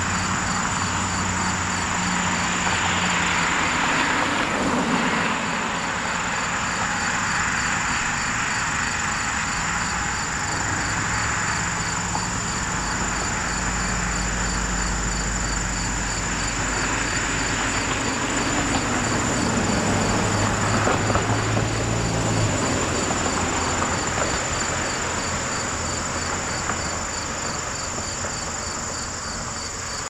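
Outdoor summer insect chorus: a steady high-pitched shrilling with an evenly pulsing trill, as from crickets. Beneath it runs a low engine hum and the noise of traffic, which swells as vehicles pass about 4 seconds in and again around 20 seconds; the hum stops a little over two-thirds of the way through.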